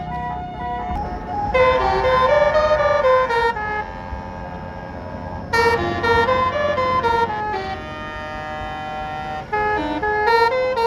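Bus's Basuri telolet horn playing a stepping melody, with three loud phrases about one and a half, five and a half and nine and a half seconds in, over the low rumble of traffic.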